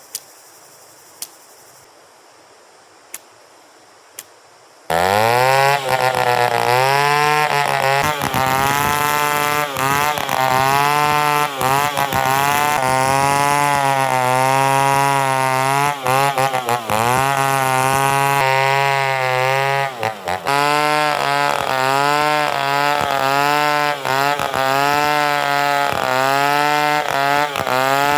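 A few sharp clicks over a low background, then about five seconds in a Stihl 070 two-stroke chainsaw comes in abruptly at high revs. Its engine pitch keeps sagging and recovering every second or two as the chain bites into pine wood.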